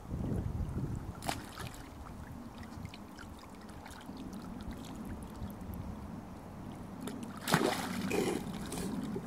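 A dog wading in shallow muddy water, with a loud burst of splashing about seven and a half seconds in as it plunges its head under to grab something on the bottom.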